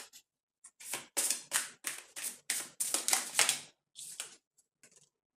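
A deck of tarot cards being shuffled by hand in quick, even strokes, about four a second, then a few softer card sounds near the end as cards are drawn and laid down on the table.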